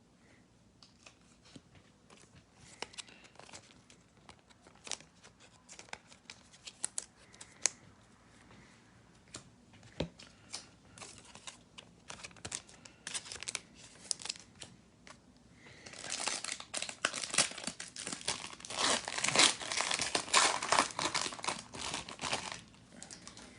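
Trading cards being handled with light clicks and rustles, then a card pack's wrapper torn open and crinkled, loudest for the last several seconds.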